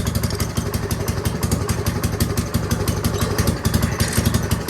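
Gravely tractor's small gasoline engine idling steadily, with a fast, even firing beat.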